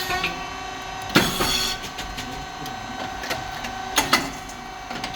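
SYP5310T rice cake puffing machine running: a steady hum from its hydraulic pump, motor and fan. About a second in comes a loud sharp bang followed by a brief hiss, and two more sharp knocks near the end, as the moulds work through a cycle.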